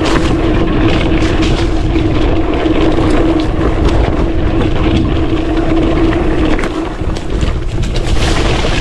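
Mountain bike ridden fast over rough dirt: tyre and ground noise with wind buffeting the microphone, many short clattering knocks from the bike, and a steady hum underneath.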